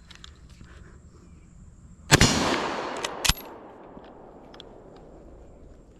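A single rifle shot from a Long Branch Lee-Enfield in .303 British, a sharp crack with a long echoing tail, followed about a second later by a short sharp click.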